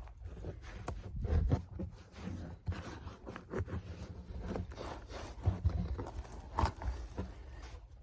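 Packed potting soil and a mass of roots being dug, scraped and torn out of a potato-growing container: irregular scraping, rustling and tearing.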